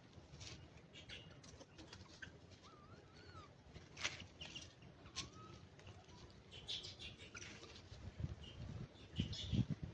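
Faint short squeaking calls from monkeys among scattered clicks and rustles, with a run of low thumps and knocks near the end.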